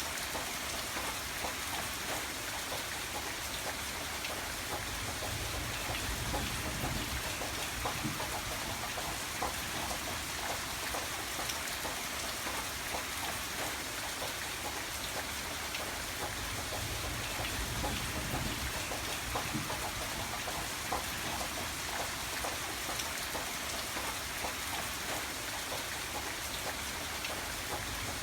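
Steady rain falling, with many separate close drops striking as sharp little ticks over an even hiss.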